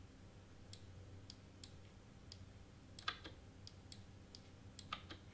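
Computer mouse clicking faintly and irregularly as on-screen pieces are selected and dragged, the loudest click about three seconds in, over a low steady hum.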